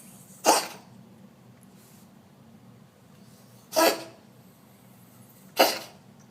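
Cat coughing: three short coughs, the first about half a second in and the last two under two seconds apart.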